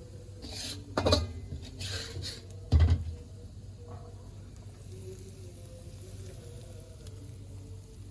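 Kitchen cookware sounds: a utensil scraping and clattering against a pan or plate a few times in the first three seconds, with one sharp knock just before the three-second mark, over a low steady hum.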